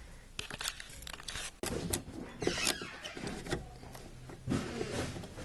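Hand tools working a hose clamp on the fuel-tank filler inlet hose: a series of sharp clicks and scraping, with a short squeak about two and a half seconds in.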